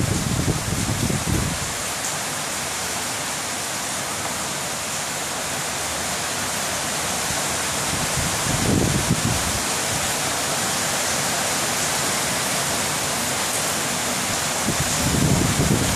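A steady hiss, like rain or rushing water, with short low rumbles at the start, about nine seconds in, and near the end.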